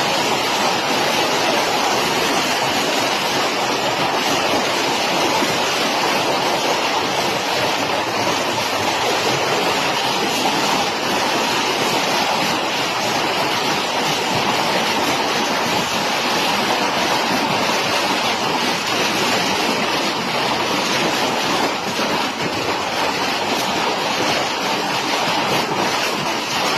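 Heavy hailstorm with rain: a dense, unbroken roar of hailstones and rain pounding down, with countless small impacts in it.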